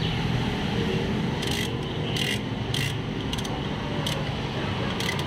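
Ratchet wrench clicking in about six short bursts as the clutch pressure plate bolts are tightened onto the flywheel, over a steady low background hum.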